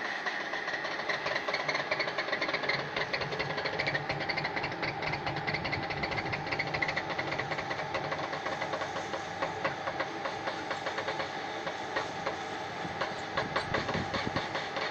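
Screw-type biomass briquetting machine running while it extrudes a coffee husk briquette through its die: a steady machine tone under dense, rapid, irregular clicking and crackling.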